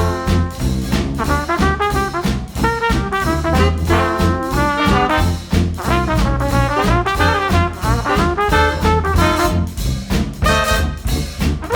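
Background music: upbeat swing-style jazz with trumpets and trombones over a steady beat.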